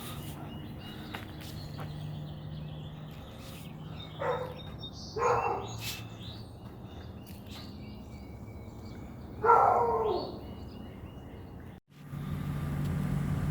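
A dog barking three times, once about four seconds in, again a second later and loudest near the end, over a steady low hum with faint bird chirps. Near the end the sound cuts off abruptly and a louder steady hum begins.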